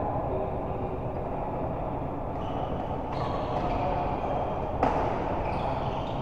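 Steady rumbling background noise with one sharp hit about five seconds in.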